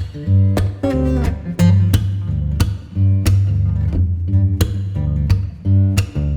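Background music: plucked and strummed guitar over a bass line, with a steady rhythm.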